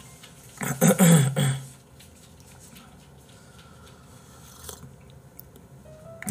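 A man drinking from a mug: a loud, breathy sip-and-exhale with a falling voice, lasting about a second, about a second in; then only quiet room sound.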